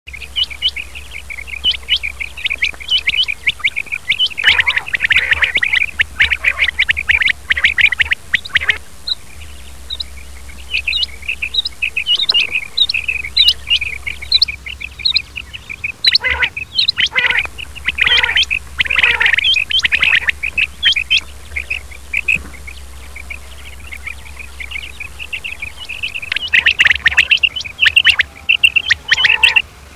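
Male quail (batair) calling: rapid runs of short, high chirps in bursts separated by brief lulls, over a steady low hum.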